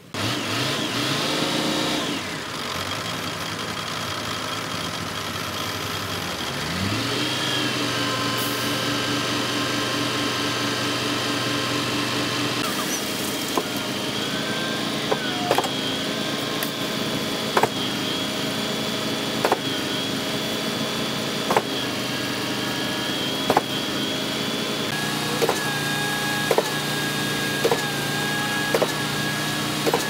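Diesel engines of a concrete pump and truck mixer running steadily, revving up about a quarter of the way in. From midway, sharp knocks come about every two seconds and then about once a second near the end: the pump's strokes as it pushes concrete from the hopper into the line.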